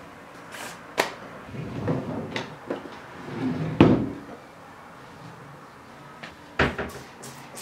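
Wooden dresser drawer being handled: a sharp click about a second in, sliding scrapes, a loud knock about halfway through, and another sharp click near the end.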